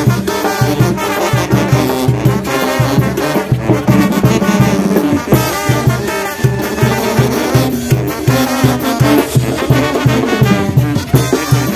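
Oaxacan brass band playing dance music: brass melody over a steady, evenly pulsed bass beat.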